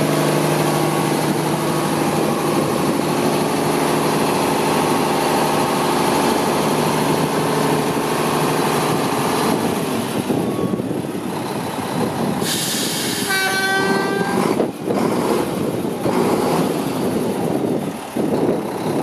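1999 Mack CH613 tractor's diesel engine idling steadily. About two-thirds of the way through comes a short burst of hiss with a brief pitched toot in it, followed by a single knock.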